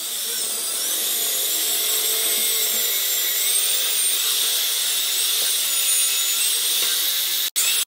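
Corded electric drill with an 8 mm bit boring a pilot hole into the edge of an 18 mm plywood panel: a steady high motor whine whose pitch wavers as the bit cuts.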